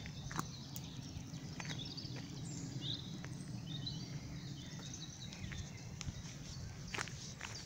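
Footsteps on gravel, a few irregular steps, with birds chirping and a steady low rumble in the background.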